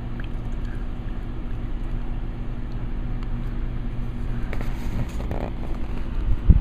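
Steady low hum with a few level tones, a brief rustle about four and a half seconds in, and a thump near the end.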